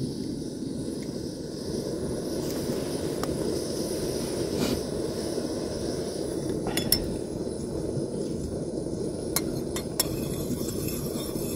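Gas canister camping stove burning with a steady low rushing roar. A few sharp metal clinks of a spoon against a stainless steel saucepan ring out about seven and ten seconds in as milk is stirred.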